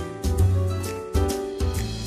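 Background music: a light, upbeat instrumental with plucked notes over a pulsing bass and a steady beat.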